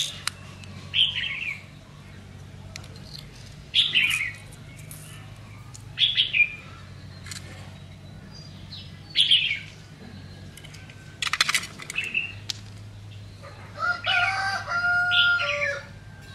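Small birds chirping, short falling calls every couple of seconds, with a brief rattling flutter about eleven seconds in. Near the end a rooster crows. A steady low hum runs underneath.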